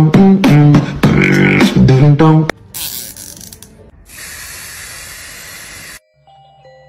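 Music with a vocal, beatboxed beat that stops about two and a half seconds in, followed by a steady hiss for about three seconds that cuts off suddenly.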